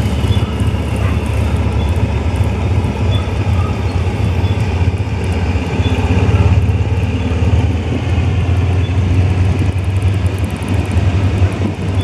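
Diesel locomotive's engine running with a steady low drone.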